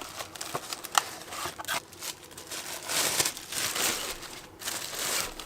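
Packaging crinkling and rustling in irregular bursts, with a few sharp clicks, as a cordless reciprocating saw is unpacked from its box.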